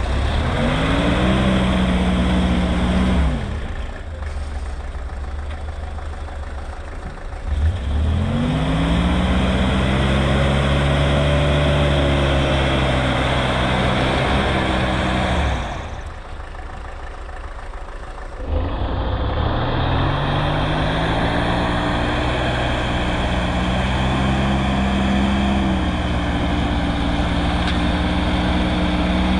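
Square-body Chevrolet Suburban's engine revving hard in three long stretches as the truck tries to drive out of deep wet snow with its wheels spinning, dropping back to a quieter note about 4 s and 16 s in.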